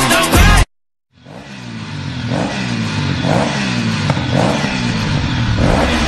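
Electronic music cuts off abruptly under a second in. After a half-second gap, a new soundtrack fades in: low pitch sweeps and a brighter pulse repeating about once a second, with an engine-like revving character.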